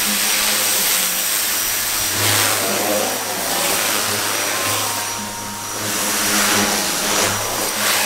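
Pressure washer running, its wand blasting a jet of water onto paving and wire mesh: a steady loud hiss of spray over a low motor hum.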